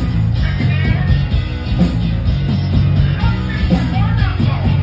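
A rock band playing live: electric guitars over bass and drums, with a high lead line bending up and down in pitch over the top.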